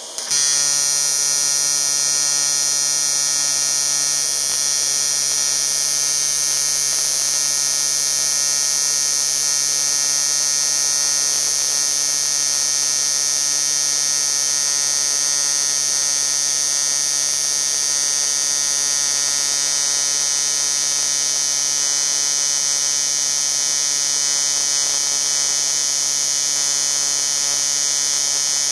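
AC TIG welding arc from a Jasic TIG 200P AC/DC inverter on 1.5 mm aluminium at 70 amps, struck at the very start and then held as a steady, loud buzz pitched by the 140 Hz AC frequency.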